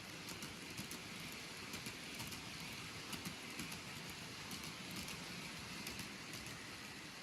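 N-gauge model train running along the track: a steady, faint rolling hiss with many light, irregular clicks.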